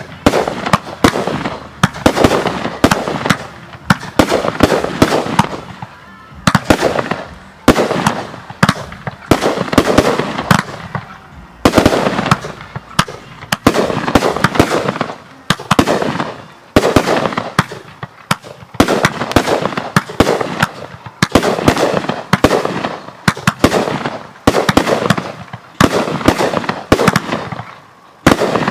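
Fireworks display: aerial shells bursting in quick succession, each sharp bang trailing off into a fading tail, with brief lulls between volleys.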